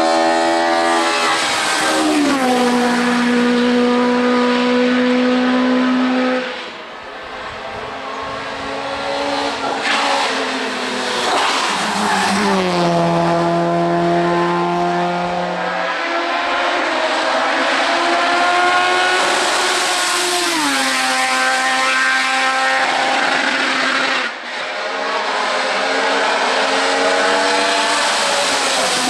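Hill-climb race car engines at high revs under full throttle, their pitch dropping in steps with each upshift and climbing again between shifts. Twice the sound breaks off abruptly and another car takes over.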